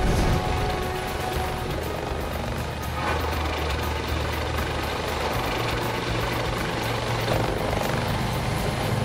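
Eurocopter Dauphin air ambulance helicopter in flight, its main rotor and turbine engines running steadily, with a low drone throughout.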